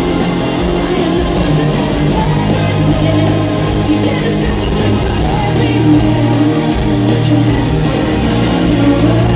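Symphonic metal band playing live: distorted electric guitars, drums and keyboards under a female lead vocal, heard loud from the audience.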